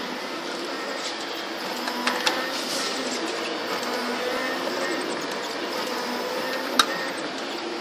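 Bras two-bowl granita machine running with a steady mechanical hum and whir from its motors, with a few sharp clicks, one about two seconds in and one near the end.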